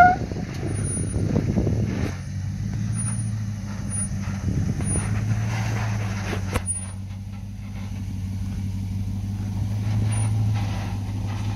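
Off-road vehicle's engine running at low, steady revs, with rough scratchy noise in the first two seconds and a single sharp click about six and a half seconds in.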